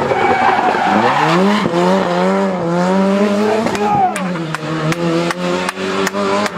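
Ford Sierra RS Cosworth rally car's turbocharged four-cylinder engine revving hard as it drives out of a corner, pitch climbing and then holding. About four seconds in comes a run of sharp cracks, two to three a second.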